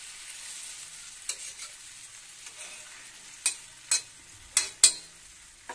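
Stuffed bitter gourds sizzling in mustard oil in a metal kadhai on low heat, while a metal spatula turns them. The spatula scrapes and clinks against the pan, with one clink about a second in and a run of sharp clinks between about three and a half and five seconds in.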